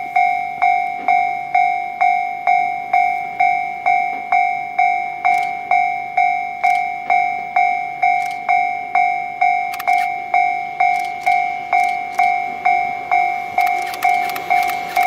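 Japanese level-crossing warning bell ringing, an electronic two-tone clang repeated a little over twice a second, each strike sharp and then fading. A few clicks come late on, and near the end a rushing noise starts to rise as the train approaches.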